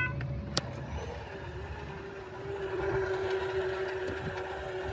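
An electronic level-crossing bell cuts off right at the start. A single sharp click follows about half a second in, then a steady hum over a low vehicle rumble.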